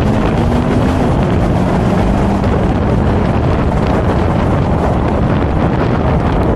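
Steady, heavy wind noise on the microphone of a moving BMW Z4 M40i. The car's turbocharged inline-six engine runs faintly underneath as a low steady tone.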